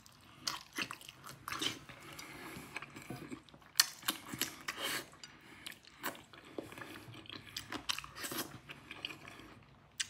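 A person chewing mouthfuls of rice and fish eaten by hand, with irregular wet lip smacks and clicks.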